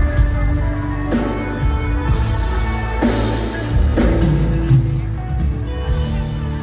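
Live band playing an instrumental passage through the stage PA: electric guitar and drum kit over a steady bass, with no singing yet.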